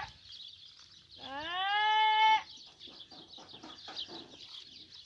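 A single bleat from the penned flock of sheep and goats, about a second in. It rises in pitch and is then held for about a second before it breaks off.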